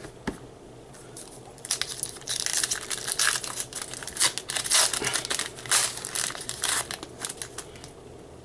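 A foil trading-card pack wrapper being torn open and crinkled by hand: a dense run of crackling rustles starting about two seconds in and lasting some five seconds.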